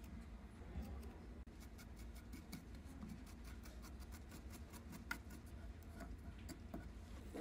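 Faint snips and light clicks from scissors trimming cotton wicking at a vape coil deck, a run of small sharp ticks over a low steady hum.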